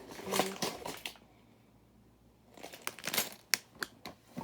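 Handling the contents of a freshly opened brick-set box: short rustles and clicks of cardboard and plastic parts bags. They come in two bursts with a quieter pause of about a second and a half between them.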